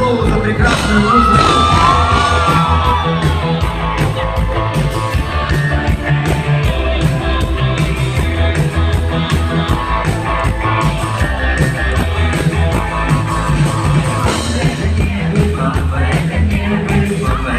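Live rock band playing in a concert hall: drums and bass run steadily throughout, with voices singing and shouting over the music.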